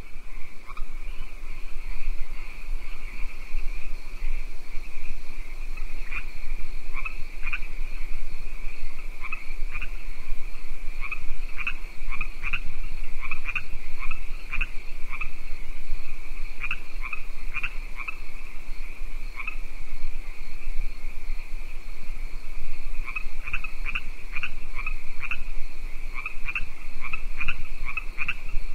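Frogs chorusing at night beside a lake: a continuous high trilling drone with many short, sharp calls on top, coming in clusters and thinning briefly about three-quarters of the way through.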